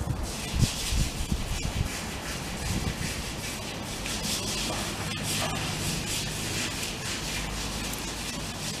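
Sulcata tortoise biting and chewing fresh grass, an irregular run of rustling crunches.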